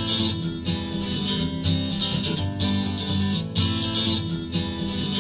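Acoustic guitar strumming in the instrumental intro of an acoustic pop song, before the vocals begin, played back through an in-ear monitor.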